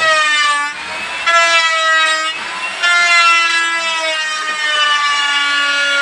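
A melody of long held notes, each rich in overtones, stepping to a new pitch every second or so with a slight slide at the end of each note, like a horn or synthesizer line.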